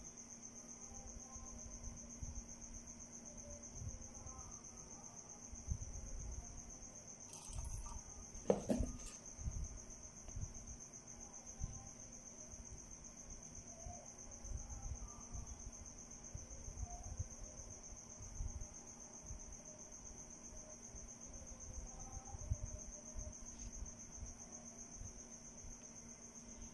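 Crickets chirring steadily at a high pitch, with a faint low hum underneath. Scattered soft knocks and rustles of handling, and one louder knock about a third of the way in.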